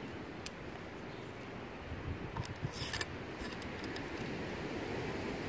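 Wind rumbling on the microphone, with a few light clicks and a short rustling hiss about three seconds in.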